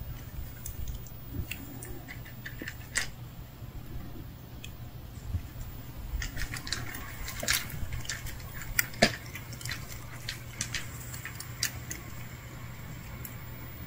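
Scattered light clicks and rustles over a low steady hum, most frequent in the middle stretch, with one sharper tick about nine seconds in.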